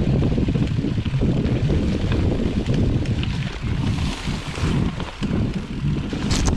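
Wind noise on the microphone of a camera mounted on a mountain bike's handlebar while riding a rough grassy forest track, with small knocks from the bike over the ground. Near the end a spruce branch brushes past with a brief swish.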